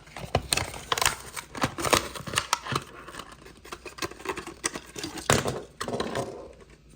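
Hot Wheels blister pack being opened by hand: the plastic bubble and cardboard card crackling, with many irregular clicks and scrapes and a sharper snap a little after five seconds in.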